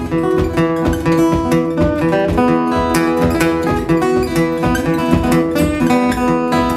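Fingerpicked acoustic guitar playing an instrumental blues, the thumb keeping a steady bass going under the melody notes.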